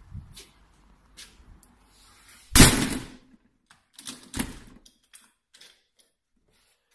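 Door being handled: a loud bang about two and a half seconds in, a second knock nearly two seconds later, then a few light clicks.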